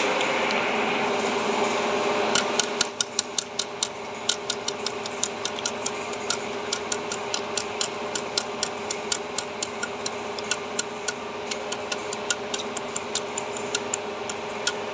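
A long run of sharp, evenly spaced clicks, about three a second, starting a couple of seconds in, over a steady background hum that drops about three seconds in.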